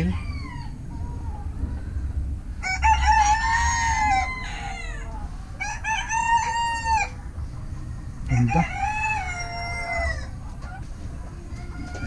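Roosters crowing: three long crows, each lasting one to two seconds, about two seconds apart, over a steady low rumble.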